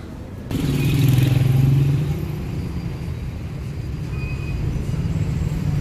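Street traffic: a motor vehicle's engine sounding loudest a second or so in, then a steady rumble of road traffic.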